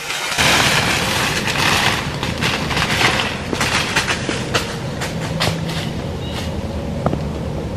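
Dry corn stalks crackling and rustling with many sharp snaps as a shot whitetail buck crashes away through a standing cornfield. The noise starts suddenly, is loudest for the first couple of seconds, then eases a little but keeps going.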